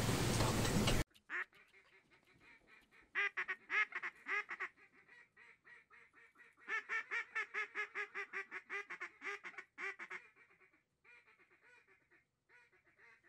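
Duck quacks in quick runs of about four or five a second, the longer run fading toward its end, with fainter scattered quacks after. A second of loud rushing noise cuts off abruptly about a second in.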